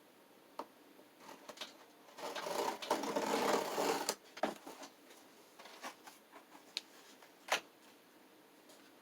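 Cardboard projector box being opened by hand: about two seconds of dense rustling and scraping of cardboard and packing, with scattered clicks and knocks before and after it.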